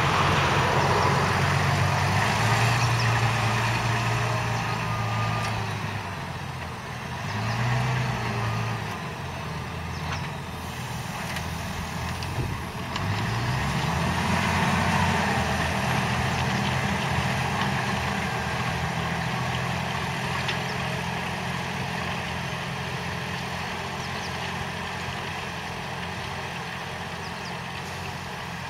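Valtra T174 tractor's 7.4-litre six-cylinder diesel engine working under load, hauling a five-furrow reversible plough through the soil. Its note dips and then climbs again about thirteen seconds in, and it fades gradually toward the end.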